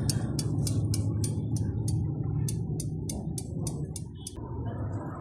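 Hero Xpulse single-cylinder engine running with a loud, regular ticking from the valve gear, about four to five ticks a second, the sign of a broken rocker arm. The ticking stops about four seconds in while a low engine hum carries on.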